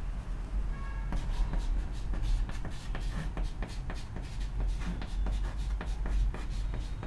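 Chalk scratching and tapping on a chalkboard in many short strokes as words are written out.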